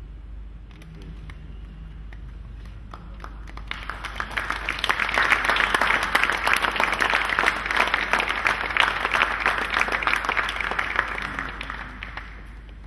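Audience applauding: scattered claps begin about a second in, swell into full applause through the middle, then die away near the end.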